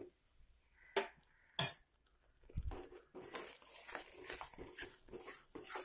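A steel spatula stirring a thick Mysore pak batter of gram flour, sugar and hot oil in a pan: two sharp knocks against the pan about a second in, then continuous scraping and crackling as the foaming mixture is worked.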